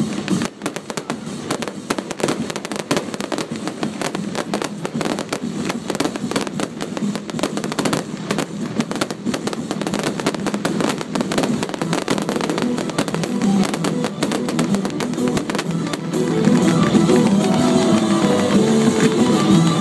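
Aerial fireworks going off: a dense, continuous run of sharp pops and crackles from bursting shells. Music plays alongside and grows louder in the last few seconds.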